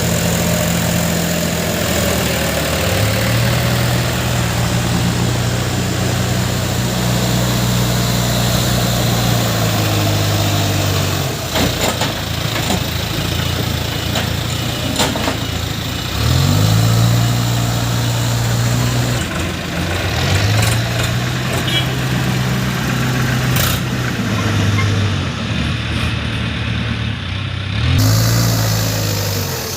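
JCB 3DX backhoe loader's diesel engine running under working load, its pitch rising and holding, then dropping back, four times as the loader works. A few sharp knocks come through in the middle of the stretch.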